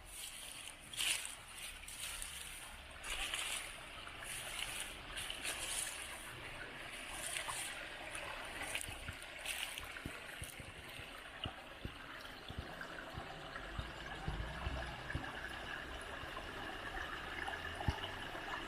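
Stream water flowing and trickling, with irregular splashes in the first half.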